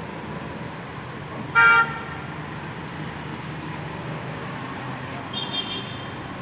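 A vehicle horn gives one short, loud honk about a second and a half in, over a steady rush of wind and rain. A fainter, higher-pitched tone sounds briefly near the end.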